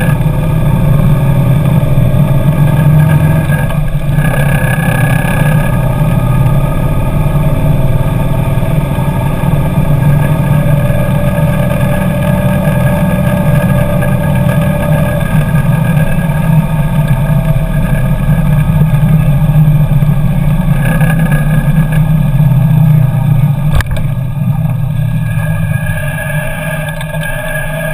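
Kawasaki Nomad V-twin motorcycle on the move, engine running steadily with pitches sliding as speed changes early on. A single sharp click sounds about 24 seconds in, and the engine quietens over the last few seconds.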